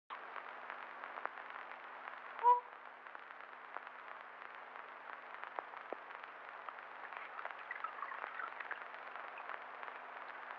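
Faint hiss and scattered crackle of an old film soundtrack transferred from tape, with one short beep-like tone about two and a half seconds in.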